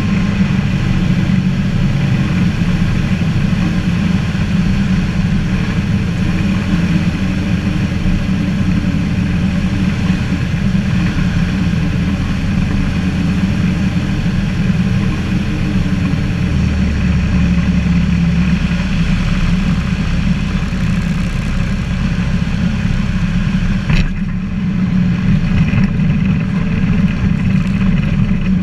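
Ikarus C42B ultralight's engine and propeller droning steadily, heard from inside the cockpit with wind rush, through final approach and landing. The low drone changes pitch about 16 seconds in, and a single sharp knock about 24 seconds in is followed by less wind hiss.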